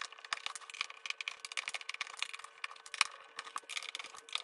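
Screwdriver backing screws out of a plastic toy tank's body, making rapid, irregular clicks and small rattles.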